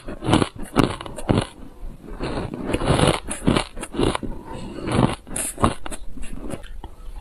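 Close-miked crunching of a mouthful of granular frozen purple ice being chewed, a run of crisp crunches about two a second.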